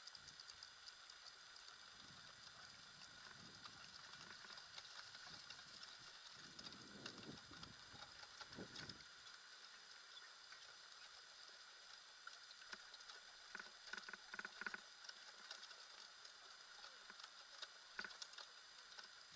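Faint pattering and light rattling as two harnessed dogs pull a dog scooter along a paved path, with a few sharper clicks about two-thirds of the way in.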